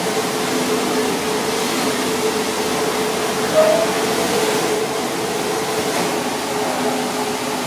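Steady rushing noise of a commercial kitchen's gas broiler burner and ventilation, with a faint hum. About three and a half seconds in, a short metallic squeal as the broiler's steel door slides shut.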